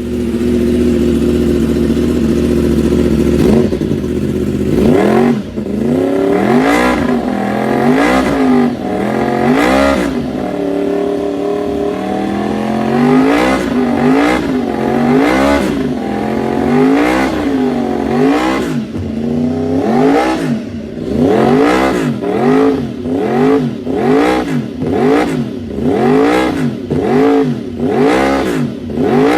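Yamaha YZF-R1 RN32's crossplane inline-four through an aftermarket race exhaust, idling briefly and then revved over and over, the engine note rising and falling with each blip. The blips come slower at first and speed up to about one a second in the last third.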